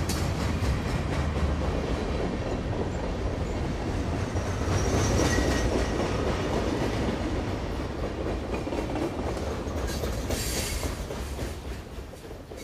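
Steady rushing and rumbling noise picked up by the flying quadcopter's onboard camera: wind and propeller noise. It fades out near the end.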